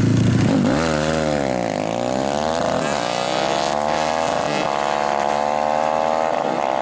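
Racing moped's two-stroke engine launching off the start line and revving hard, its pitch climbing, dropping back at each gear change and climbing again several times as it pulls away.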